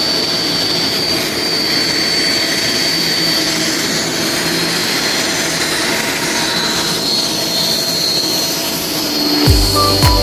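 Loud, steady hissing noise with a thin high whine over it. Music with a bass line comes in near the end.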